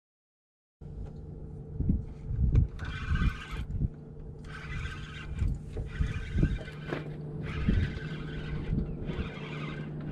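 A steady low mechanical hum starts about a second in. Irregular dull thumps and several short bursts of hiss run over it.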